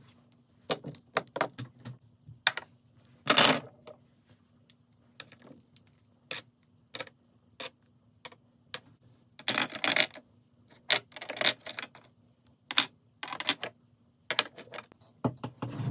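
Plastic and metal-capped makeup tubes, pots and wands being set down one after another on a hard desk: irregular clicks and clattering knocks, several coming in quick clusters.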